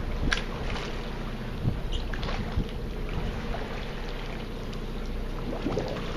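Steady low hum of a boat's running machinery, with wind noise on the microphone and a few light knocks on the hull or deck.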